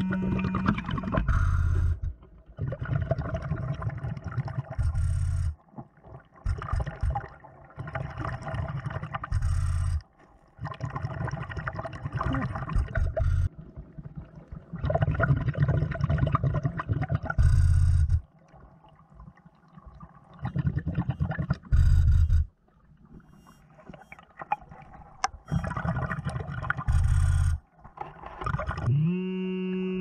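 A diver breathing underwater through a Blu3 Nemo hookah regulator: drawn breaths and gushing exhaled bubbles, repeating every few seconds. Heard through the underwater camera's housing.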